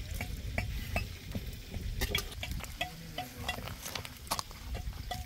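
A metal utensil stirring and clinking in a large pot of rice cooking on a wood fire: scattered sharp clicks and scrapes over a steady low rumble.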